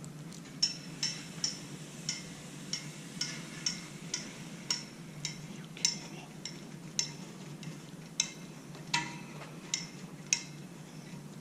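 Chrome-plated steel wire shelving parts clinking as they are fitted together: an irregular series of light metallic ticks, about two a second, each with a short ring.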